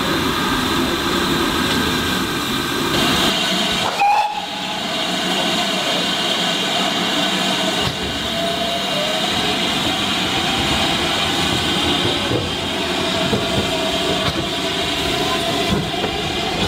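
Steady steam hiss and train noise from ex-GWR 42xx 2-8-0 tank engine 4270, with a short dip about four seconds in.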